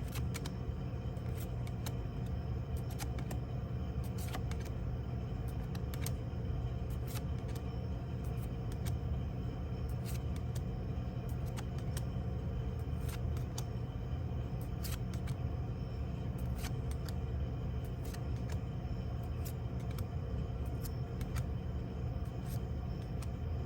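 Trading cards and their packaging being handled, with scattered light clicks and ticks over a steady low hum.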